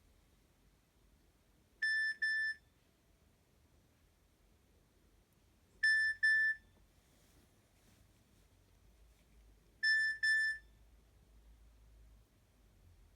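Nokia 112 mobile phone's speaker sounding a high double beep three times, about four seconds apart, as a repeating ringtone or alert tone.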